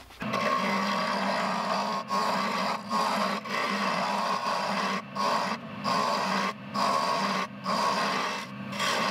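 A wood lathe running while a handheld chisel cuts into the spinning wooden spool blank. It makes a steady scraping over the lathe's low hum, broken by several brief gaps.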